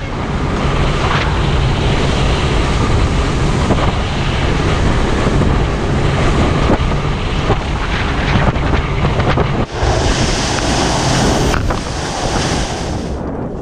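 Powerboat running fast through choppy water: a steady low engine drone under heavy wind buffeting on the microphone and rushing water, with a few knocks as the hull hits waves. About ten seconds in it changes to a bright hiss of spray tearing along the hull.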